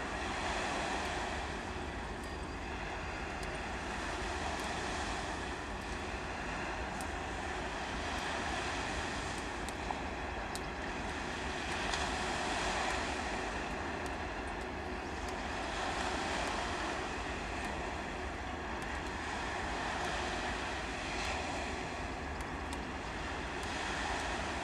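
Wind rushing over the microphone and water washing at the shoreline, swelling about every four to five seconds over a constant low rumble.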